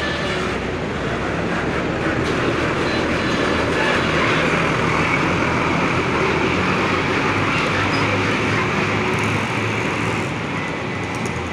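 Intercity coach pulling away at close range: engine running and tyres rolling in a steady, loud rumble and hiss, fading slightly near the end as it moves off.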